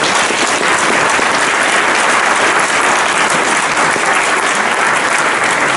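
Audience applauding steadily, a dense, even clapping.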